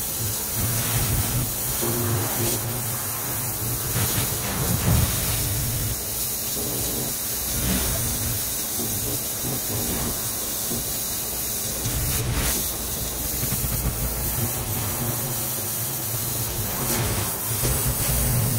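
Pressure washer spraying water in a steady hiss, with the drone of its engine running underneath.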